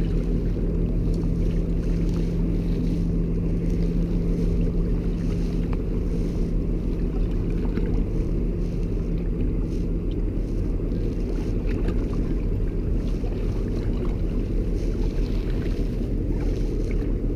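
Boat motor running steadily at low speed, a constant low drone mixed with wind and water noise. A steady hum within it stops about ten seconds in.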